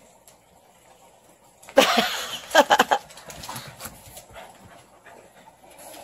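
Pugs playing together: a loud, short burst of dog noise about two seconds in, followed by a quick run of sharp clicks, then quieter scuffling.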